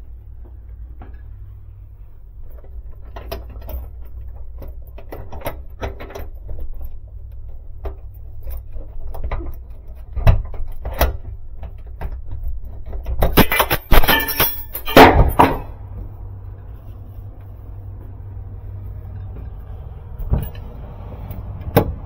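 Metal knocks and clanks from climbing a steel roof-access ladder and working a padlocked roof-hatch latch, with a burst of loud metallic rattling in the middle. A sharp knock near the end as the hatch is pushed open. A steady low hum runs underneath.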